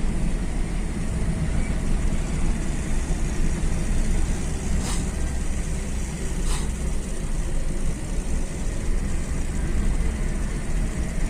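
Steady low rumble of a vehicle's engine and tyres while driving along a hilly road, with two brief clicks about five and six and a half seconds in.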